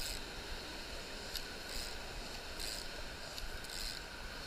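Rushing river water as a steady hiss, with a short swish about once a second as fly line is cast back and forth through the air.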